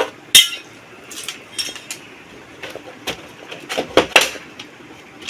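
Sharp clicks and light clattering as the plastic back cover of a 32-inch LED TV is taken off and handled. The loudest click comes about half a second in, with further scattered clicks between about one and four seconds.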